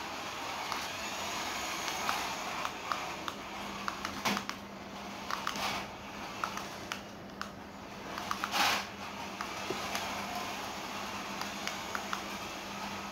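Toy remote-control car's small electric motor whirring as it drives over a tiled floor, with scattered clicks and a louder burst of noise about eight and a half seconds in.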